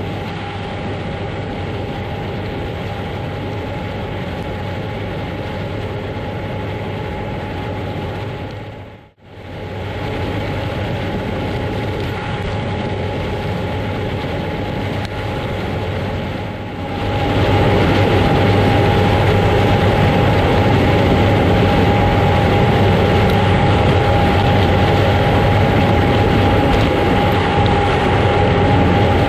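Heavy harvest machinery running steadily, a constant drone with a high whine over it. The sound dips out for a moment about nine seconds in and is louder from about seventeen seconds in.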